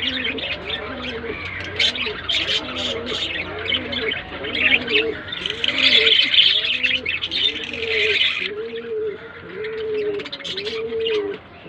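Pigeon cooing over and over, about one arched coo a second, with high chirps and sharp clicks over it.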